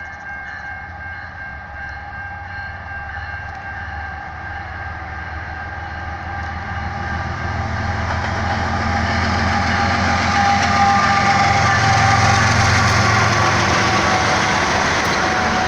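BNSF diesel freight train approaching. The locomotive's engine rumble and the rolling noise of the wheels on the rails grow steadily louder over the first ten seconds or so, then hold.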